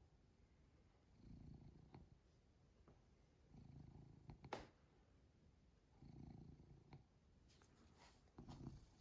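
Domestic cat purring softly in slow swells, one about every two and a half seconds as it breathes. A sharp click about four and a half seconds in, and a few faint clicks near the end.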